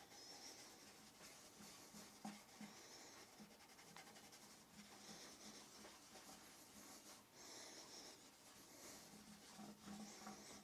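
Faint rubbing of a cloth wiped back and forth along a guitar fingerboard, working in drops of fingerboard conditioner, the hiss swelling and fading with each stroke.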